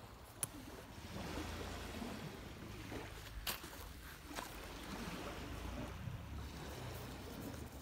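Small waves washing on a sandy lake shore, with wind rumbling on the phone's microphone and a few short sharp clicks, the clearest about half a second in.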